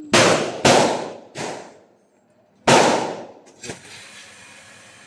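Four pistol shots from a Glock, the first two about half a second apart, a weaker third soon after, and a fourth after a pause of over a second, each with a ringing tail. A small light click follows about a second after the last shot.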